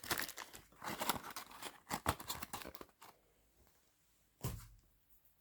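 Plastic packaging crinkling and rustling in the hands for about three seconds, then a single thump.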